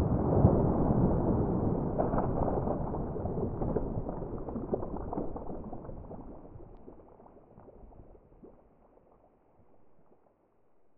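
End-card sound effect: a crackling, rushing noise that fades steadily away and is gone about eight seconds in.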